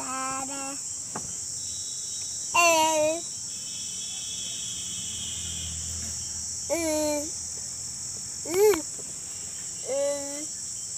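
A young boy's voice making short wordless sung calls, four brief notes a few seconds apart, each sliding in pitch.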